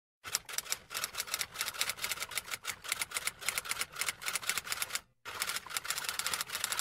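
Typewriter sound effect: rapid keystroke clicks accompanying text typed out on screen, with one brief pause about five seconds in.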